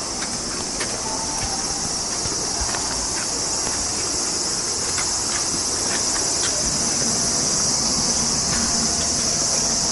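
A steady, high chorus of cicadas shrilling in the summer trees. Faint scattered footsteps on stone paving tap underneath.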